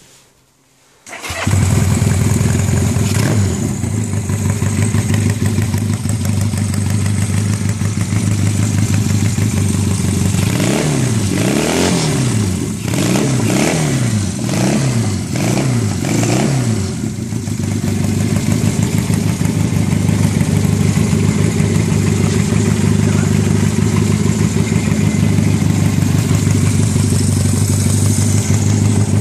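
Honda CB200's air-cooled parallel-twin engine catching about a second in and idling steadily. Midway it is revved in about six quick throttle blips, then settles back to a steady idle.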